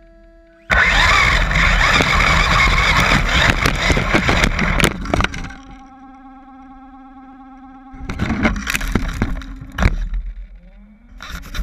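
Traxxas Slash 4x4 RC short-course truck with a Castle Creations brushless drive: under a second in it takes off hard on gravel, a loud rush of tyre and gravel noise that lasts several seconds as it tumbles onto rocks. A steady electric motor whine follows, then more gravel noise, and near the end a whine that rises in pitch as the motor spins up again.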